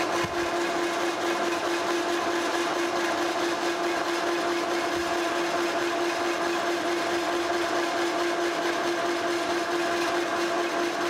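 Monarch 16-inch engine lathe running steadily under power feed, the tool taking a light facing cut across a flame-cut plate-steel disc. A steady pitched whine over a hiss.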